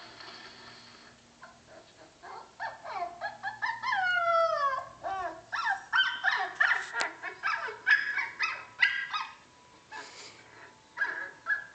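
Recorded puppy crying played through an iPad speaker: high whines starting about two and a half seconds in, one long falling whine, then a run of short yelps from about five to nine seconds in.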